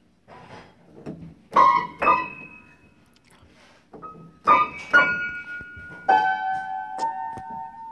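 Upright piano keys slapped by a baby's hands: soft random taps, then a handful of loud clashing clusters of notes, each left ringing, with the last notes held on near the end.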